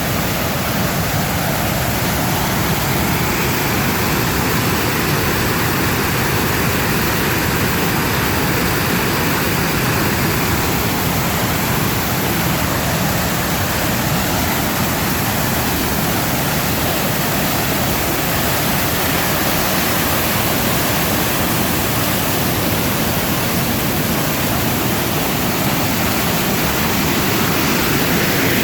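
Flood-swollen stream pouring over a low falls: a steady, loud rush of water.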